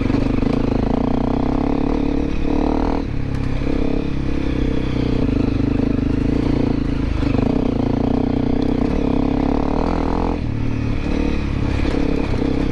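Honda CRF250L Rally's 250 cc single-cylinder engine running steadily as the dual-sport bike rides over a rocky trail, with some clatter from the rocks. The engine note changes briefly about three seconds in and again near the ten-second mark.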